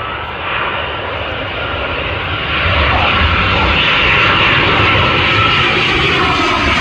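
British Airways Airbus A319 on final approach passing low overhead, the noise of its jet engines growing louder over the first three seconds and then holding steady, with a faint high whine on top.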